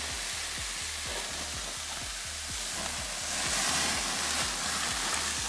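Oil-marinated skirt steak sizzling on a gas grill's hot grate, with a louder hiss about three and a half seconds in as dripping marinade flares up in the flames.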